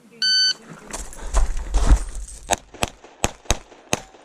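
A shot timer's electronic start beep, then about a second of rustling and bumping as the pistol is drawn from concealment, then a string of five pistol shots from a Glock 32 in .357 SIG, roughly three a second.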